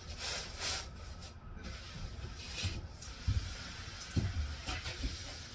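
A few soft footsteps on the shop floor, about a second apart in the second half, after a brief brushing hiss near the start.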